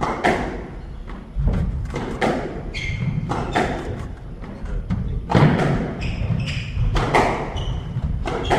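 Squash rally: the hard rubber ball smacking off rackets and thudding against the court walls about once a second, mixed with short squeaks of court shoes on the wooden floor.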